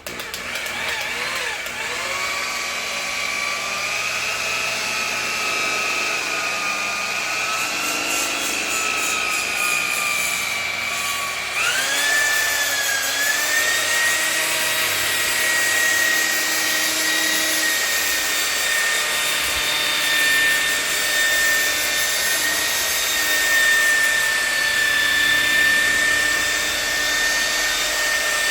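Electric car polisher running with a steady high whine while buffing polish into freshly wet-sanded paint. About twelve seconds in, its pitch dips sharply, then recovers and settles slightly lower.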